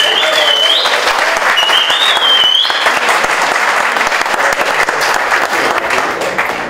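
A small audience clapping and applauding, with a high wavering tone heard twice in the first three seconds.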